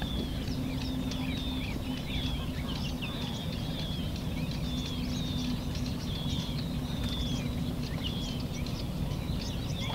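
Many small birds chirping, with short overlapping calls repeating throughout. Underneath is a steady low hum and a background rumble.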